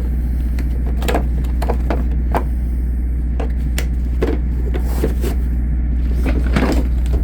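A steady low motor hum with light clicks and knocks, like tools and tool-chest drawers being handled, scattered over it.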